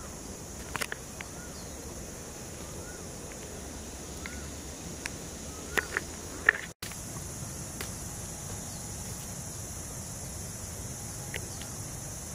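Steady high-pitched drone of insects, with a few short bird chirps in the first half. Several sharp clicks come near the start and about six seconds in, and the sound breaks off briefly about seven seconds in.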